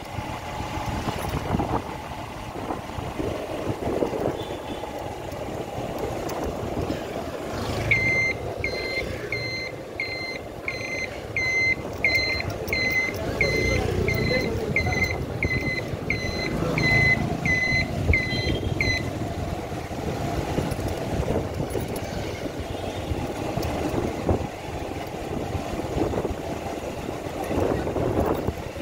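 Steady road and traffic noise. From about eight seconds in, a string of short high electronic beeps sounds about one and a half times a second, and it stops after about eleven seconds.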